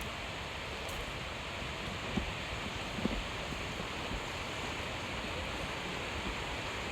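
Steady rushing outdoor noise with no clear source, with two soft low thumps about two and three seconds in.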